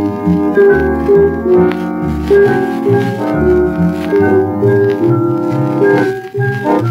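Accordion playing a lively melody over a pumping bass, its notes sustained and changing quickly, heard on an old 1942 recording.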